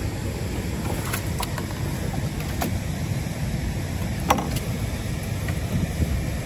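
Steady rush of flowing river water and wind around an aluminium boat, with a handful of short sharp ticks as a wet cast net is hauled up out of the water over the hull's side.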